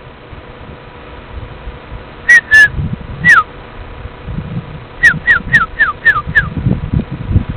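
A person whistling short, falling notes close to the microphone, the way dogs are called back: three notes, then a quick run of six at about four a second. There are low bumps of wind or handling noise underneath.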